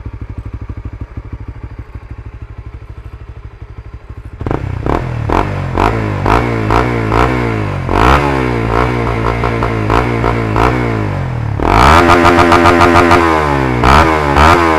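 Honda Supra GTR150's single-cylinder four-stroke engine running through an MVR1 aftermarket power pipe exhaust. It idles with a steady beat, then from about four seconds in it is revved in repeated throttle blips that rise and fall. Near the end it is held louder at high revs with a fast, even stutter.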